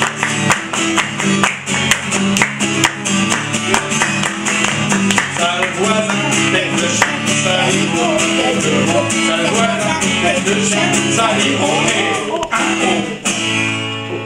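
Acoustic guitar strummed in a brisk, steady rhythm, with a wordless voice joining in over the middle stretch. Near the end a final chord rings out and fades as the song finishes.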